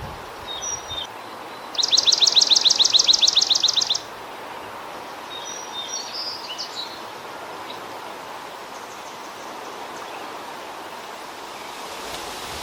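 Swamp sparrow singing: one trill of evenly repeated notes, about nine a second, lasting about two seconds and starting roughly two seconds in. Fainter short chirps come before and after it over a steady background hiss.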